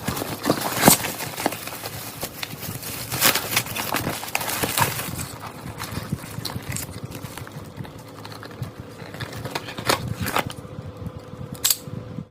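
Irregular clicks and knocks over a rustling noise, busiest in the first half, with a faint steady hum in the later part.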